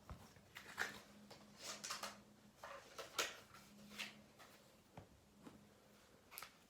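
Quiet room tone: a faint low steady hum with scattered small clicks and rustles.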